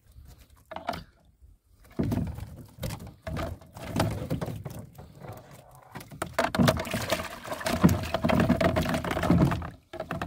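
A wire-mesh fish trap being hauled up and handled in a rowing boat: water pouring and pattering off the mesh, with irregular knocks of the trap and the fish inside against the boat. It gets busier and louder about halfway through.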